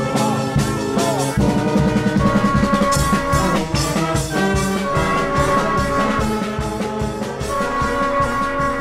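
Band music with held brass notes over a steady drum beat.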